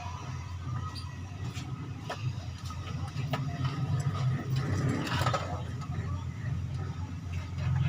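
A motor vehicle's engine running steadily with a low hum, with faint voices and scattered clicks in the background.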